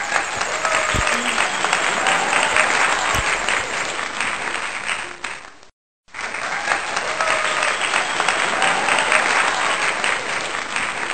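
Crowd of listeners applauding. A burst of about six seconds cuts off abruptly and the same applause starts again for another six seconds, as if a recorded clip were played twice.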